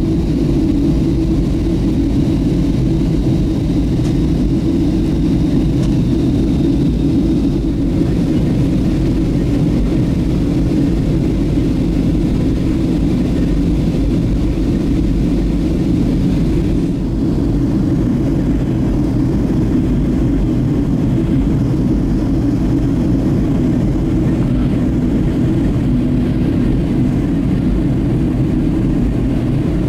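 Cabin noise inside a Boeing 737-700 during descent: a steady low rumble of the CFM56 engines and airflow over the fuselage, heard from a window seat by the wing, with a slight shift in tone about halfway through.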